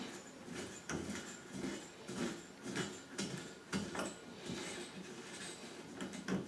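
Small metal clicks and scrapes as a bracket fitting is screwed by hand onto the top rail of a chrome towel radiator, an irregular string of light knocks, roughly a couple a second.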